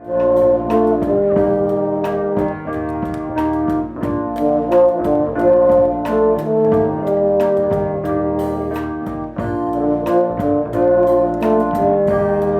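A band playing an upbeat tune: held, brass-like melody notes over regular drum hits.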